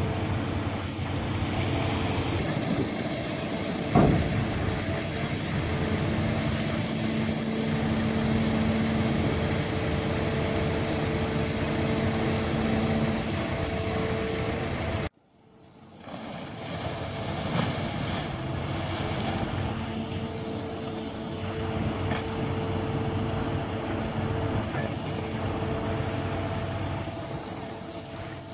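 A towboat's engine running steadily with a constant hum, and one sharp knock about four seconds in. The sound cuts out abruptly about halfway, then the same engine noise returns and fades away near the end.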